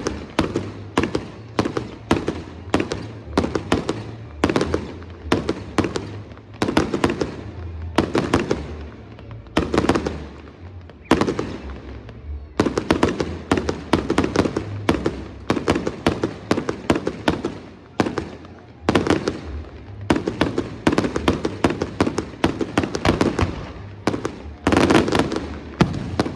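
Fireworks display: a continuous barrage of bangs and bursts, several a second, from aerial shells exploding in quick succession.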